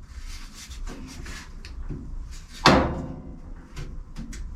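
Workshop handling noises: scattered small metal clicks and knocks, with one louder metallic clank about two and a half seconds in that rings briefly.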